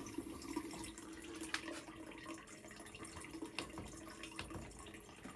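Faint water running through the plumbing of a tankless water heater as an isolation valve is opened, with a low steady hum underneath and a few light clicks.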